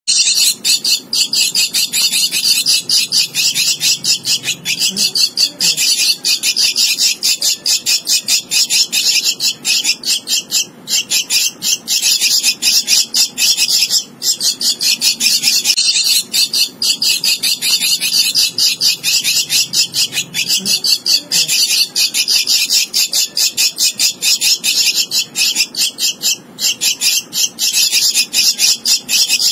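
Javan myna nestling begging for food: a continuous run of rapid, harsh, high-pitched calls with only brief breaks, the hunger cry of a hand-fed chick gaping to be fed.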